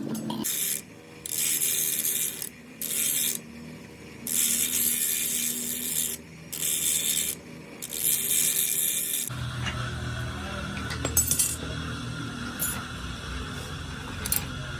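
About five rasping strokes, each up to a second and a half long, like metal being filed or scraped by hand. About nine seconds in they give way to a steady low machine hum with a few light clicks.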